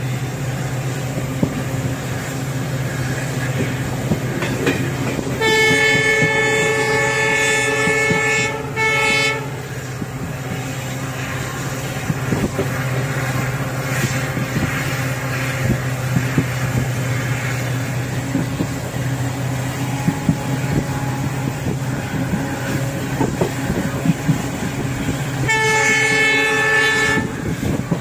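Train passing with its engine running steadily and its wheels clicking over the rails. The horn sounds a long blast about five seconds in, a short blast right after it, and another long blast near the end.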